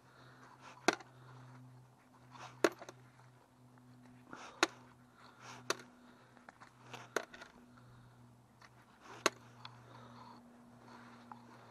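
Coins and small metal finds clicking sharply as they are handled against a strong fishing magnet and set down on a plastic seat: about six separate clicks, spaced one to two seconds apart, over a faint steady hum.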